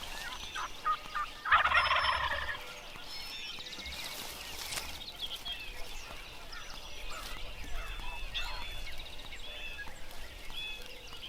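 Wild turkey gobbling once, loudly, about one and a half seconds in.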